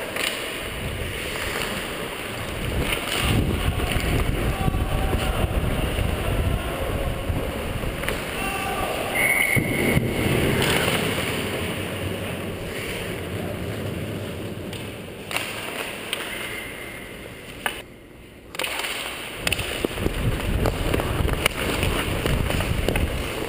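Rushing wind noise and rumble on a player-worn action camera's microphone during skating play on ice. The noise swells and eases, and drops out briefly about three-quarters of the way through.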